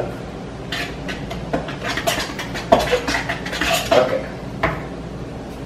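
Irregular clinks and knocks of a cup and utensil against a mixing bowl as pancake batter is worked, with one sharper knock a little past halfway.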